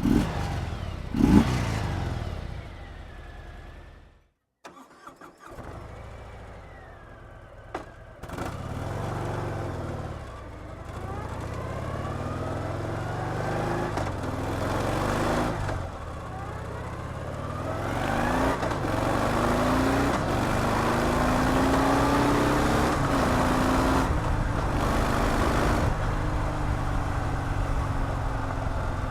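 Stock exhaust of a 2018 Harley-Davidson Sport Glide's Milwaukee-Eight 107 V-twin: a sharp throttle blip about a second in, then a short drop-out around four seconds. From about eight seconds the engine runs under throttle with its pitch rising again and again, louder from about eighteen seconds on.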